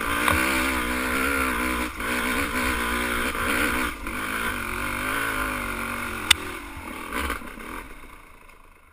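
Dirt bike engine running on a trail ride, its pitch rising and falling as the throttle is worked. A single sharp click or knock about six seconds in, and the sound fades away near the end.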